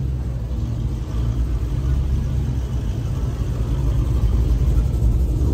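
Chevrolet Silverado pickup's engine running at low revs as the truck creeps forward, a deep steady rumble.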